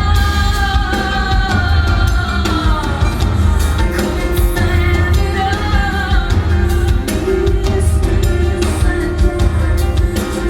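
Live rock song: a woman's voice singing long held, gliding notes over a band with drums and bass.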